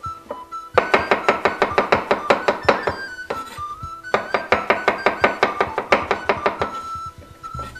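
Kitchen knife slicing raw mushrooms on a wooden cutting board: two runs of quick, even strokes, about seven a second, with a short pause between them.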